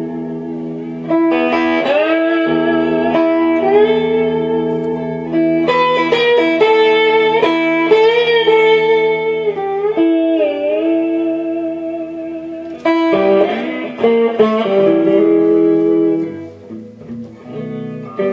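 Electric guitar played with a slide, a blues instrumental passage: sustained notes that glide into pitch and waver, between picked notes, with a quieter stretch near the end.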